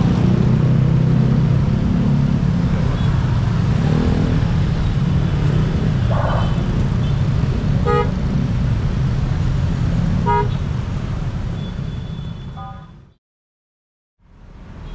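Road traffic of cars and motorcycles crossing, engines running, with about four short horn toots in the second half; it all fades out near the end.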